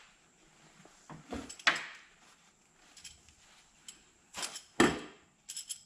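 Handling noises of hand work on an engine: a cluster of knocks and rustling about a second in, a louder one a little over four seconds in, and a few light clicks just before the end.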